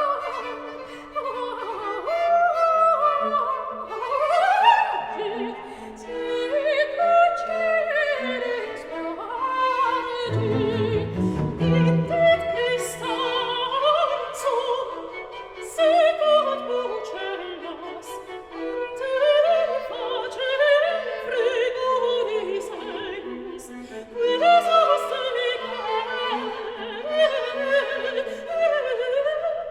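Classical background music: an operatic voice with bowed strings and orchestra, the melody sliding and wavering with vibrato, and low notes entering briefly about ten seconds in.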